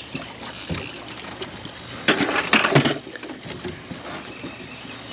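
A hooked blue catfish thrashing at the surface near the boat: a short, loud burst of splashing about two seconds in, lasting about a second.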